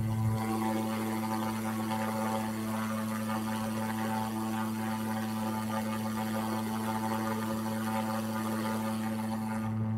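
Steady low electrical hum with a buzz of evenly spaced higher overtones, unchanging in pitch.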